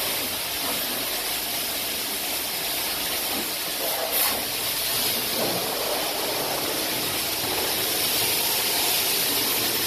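High-pressure water jet from a self-serve car wash wand spraying a steady hiss onto the wet floor, with a short sharp sound about four seconds in.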